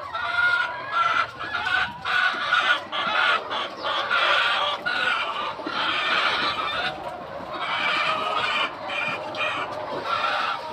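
A large flock of chickens clucking and calling, many voices overlapping in a continuous din.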